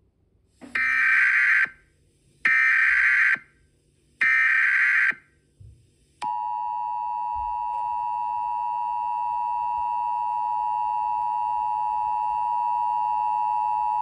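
Emergency Alert System tones: three one-second bursts of the digital SAME header, then from about six seconds in the steady two-tone EAS attention signal. This is the standard signal sequence that announces an emergency alert message.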